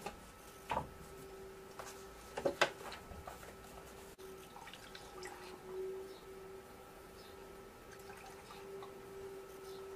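Fluid being poured from a plastic jug into a motorcycle, after a few sharp knocks and clicks of the containers being handled, the loudest about two and a half seconds in. A steady faint hum runs underneath.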